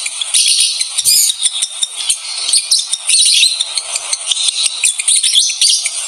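Lovebird's breeding-season chatter: a dense, unbroken run of rapid, high-pitched chirps, squeaks and clicks.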